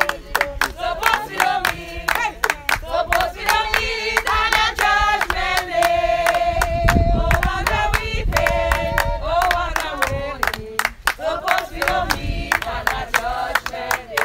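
A group of people singing together, with steady rhythmic hand-clapping keeping time.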